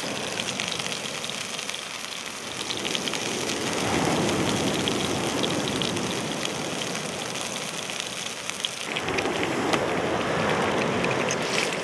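Rump steak sizzling in a frying pan over fire embers, a steady crackling hiss of frying fat. The sizzle changes abruptly about nine seconds in, as the steak is turned with a spatula.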